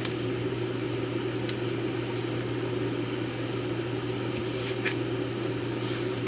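Steady machine hum, like a fan or air conditioner running, with a couple of faint light clicks from the knife box and packaging being handled.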